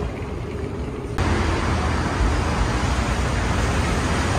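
Steady indoor background hum, then about a second in an abrupt switch to louder, steady road traffic noise from a busy street.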